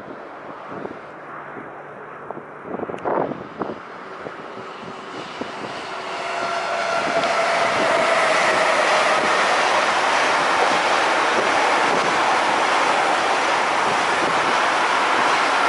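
Freight train hauled by Vectron electric locomotives, its pocket wagons loaded with semi-trailers, approaching and rolling past: a few brief knocks about three seconds in, then the sound builds to a steady loud noise of wheels running on the rails as the wagons pass.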